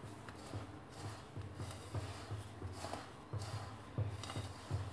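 A hand rubbing and mixing a crumbly semolina, butter and oil mixture in a ceramic bowl for harcha, with a grainy rustle and soft knocks about two or three a second as the hand works.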